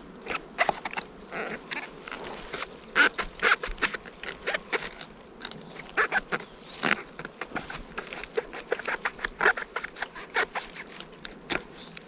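Hands picking wild oyster mushrooms off a tree: irregular small snaps, clicks and rustles as the caps are pulled and handled.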